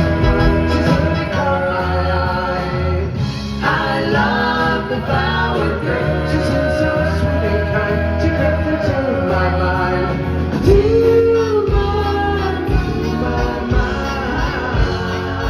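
Live pop band playing with several voices singing together in harmony, over a steady bass line.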